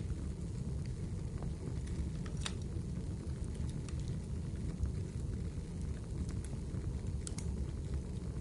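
Wood fire in a fireplace crackling: a steady low rumble of flames with scattered sharp pops and crackles, the strongest about two and a half seconds in.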